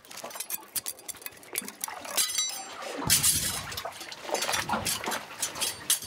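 Hard clinks and scrapes of barnacles being pried off shoreline rock in a crevice, with seawater washing among the rocks from about three seconds in.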